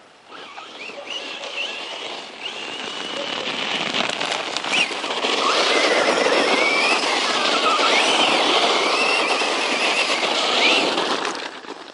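Circuit Thrash 1/10-scale RC truck driven hard: its brushless motor whines, rising and falling with the throttle, over a rushing tyre noise. The sound grows louder from about four seconds in and falls away near the end.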